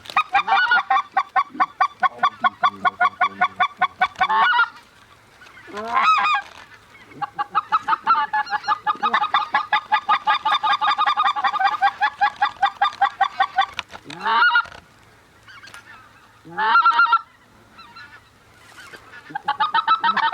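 Goose calling: long, fast runs of honks and clucks, about six a second, broken by a few single drawn-out calls near the middle. A new run starts near the end.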